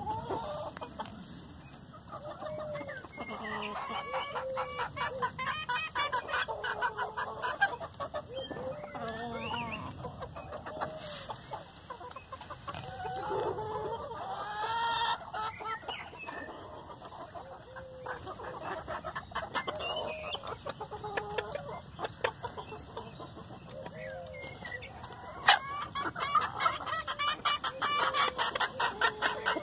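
A flock of chickens clucking as they feed, over a busy patter of sharp pecking taps as beaks strike bread and the packed earth.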